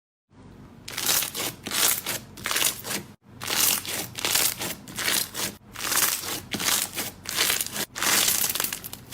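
Slime being squeezed and pressed by hand, a run of crackling, crinkly squishes about two to three a second, with a brief break about three seconds in.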